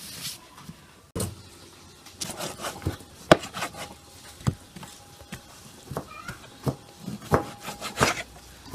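Kitchen knife slicing raw beef on a wooden cutting board, the blade knocking and tapping on the board at irregular intervals, the sharpest knock about three seconds in.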